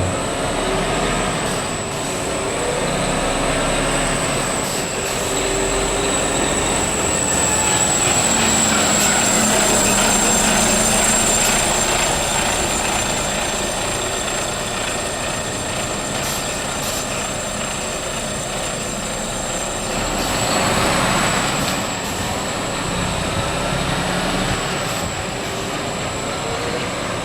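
Mercedes-Benz Arocs 3243 concrete mixer truck's diesel engine running steadily, with a steady high whine. The pitch drifts up and down and the sound swells louder a couple of times.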